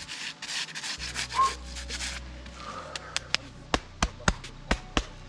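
Scuffing and rubbing noise for about two seconds. Then, from a little after halfway, a quick run of sharp hand slaps or claps, about three to four a second.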